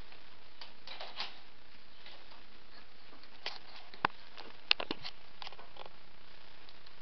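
Willow rods being woven by hand into the base of a round basket: scattered light clicks and rustles as the rods rub and knock against each other, with a few sharper clicks about four to five seconds in.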